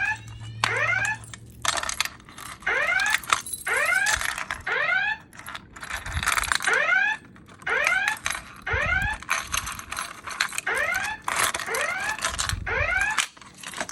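Wheelock E60 fire alarm speaker sounding an evacuation tone: repeated rising whoop sweeps in short bursts with brief gaps, the alert tone of a voice evacuation cycle.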